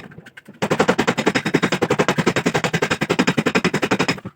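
Rapid, even machine hammering on car-body sheet metal, with well over ten strikes a second, from a power tool working the quarter panel. It stops for about half a second at the start, then resumes.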